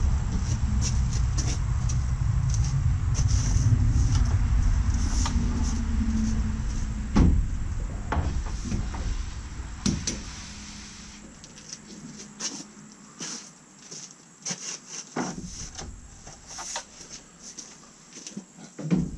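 Oak display shelves knocking and scraping as they are stacked into an enclosed cargo trailer. There are irregular sharp wooden knocks throughout, a loud one about seven seconds in, over a low rumble that fades out around halfway.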